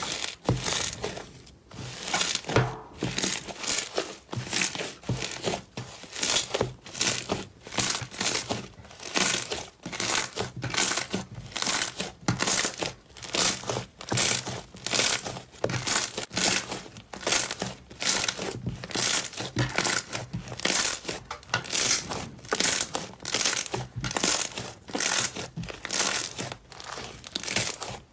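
Slime being squeezed and pressed by hand, crackling and crinkling in repeated bursts, roughly one to two a second.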